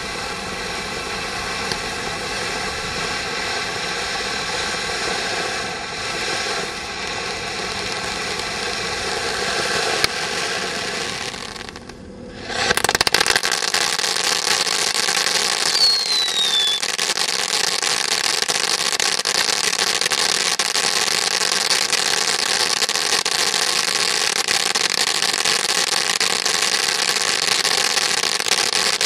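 Firework display fountain burning with a steady hiss of spraying sparks. About twelve seconds in it dies down for a moment, then comes back louder with a denser crackling hiss as the next stage throws twinkling star sprays.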